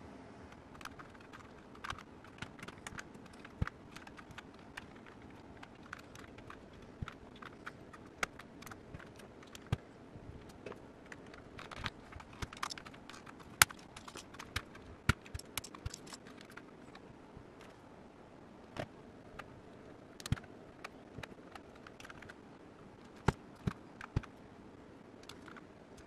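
Plastic keycaps clicking and tapping as round typewriter-style caps are picked up and pressed onto a mechanical keyboard's switch stems. The clicks come at irregular intervals and bunch together about halfway through.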